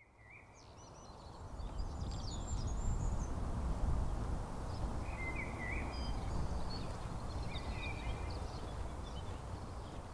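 Countryside ambience fading in: small birds chirping and singing in short scattered phrases over a low steady rumble, growing louder over the first two seconds.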